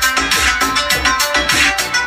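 Music with a steady drum beat and heavy bass, played through a TDA7265 2.1 amplifier board into two small 4-inch speakers and a subwoofer during a playback test.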